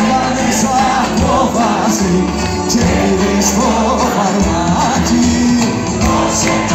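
A band playing live with singing, recorded from within the audience, the sung melody wavering over a steady bass and drum beat.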